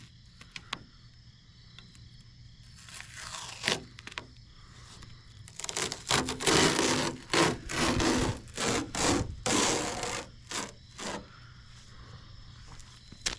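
A sticker being rubbed and smoothed down onto a jon boat's painted hull by hand. A few faint strokes come first, then a run of about a dozen short scraping strokes through the middle.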